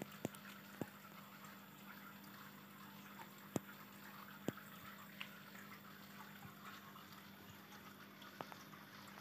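Faint water trickling and bubbling in a planted aquarium, over a steady low hum, with a few sharp clicks scattered through it, the loudest about three and a half seconds in.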